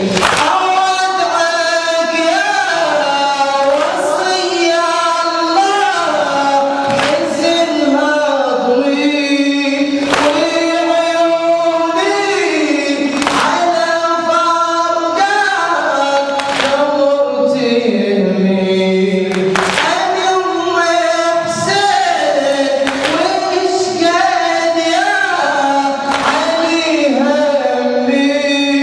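Male radood chanting a Shia mourning elegy (latmiyya) with a group of voices singing along, the melody gliding between held notes. A steady beat of sharp hits comes every second and a half to three seconds, keeping time with the chant.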